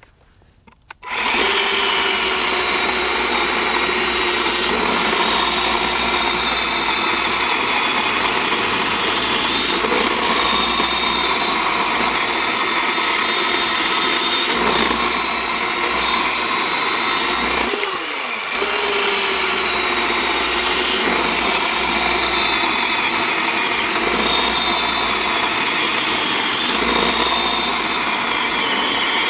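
Greenworks 40V G-MAX cordless electric chainsaw with a 12-inch bar starting up about a second in and running steadily as it cuts through a log. About two-thirds of the way through it briefly slows and picks up speed again.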